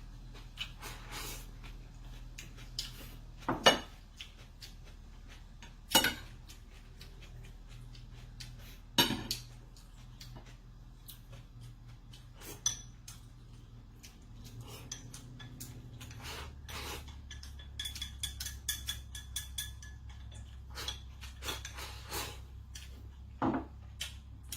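Utensils clinking against dishes: a few sharp clinks a few seconds apart, with lighter ticks and taps between.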